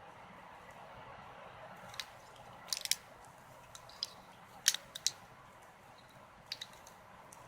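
Scattered sharp clicks and crunching cracks, several in a quick cluster, as a battery's casing and insides are pried and broken apart by hand, over a steady low hiss.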